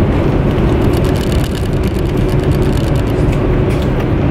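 Steady running rumble and hum of a high-speed passenger train at speed, heard from inside the carriage.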